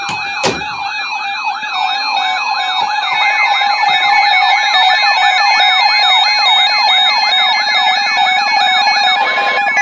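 Emergency Alert System alert tones from a radio, ahead of a severe thunderstorm warning: a loud steady alert tone with a siren-like tone sweeping rapidly up and down over it. A second steady tone joins about three seconds in, and there is a sharp click about half a second in.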